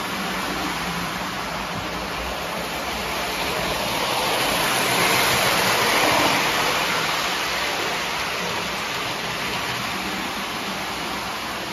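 Lionel O-gauge model steam locomotive and its cars running on three-rail track, a steady rushing rumble of motor and wheels that swells as the train passes close about halfway through and then eases off as the caboose goes by.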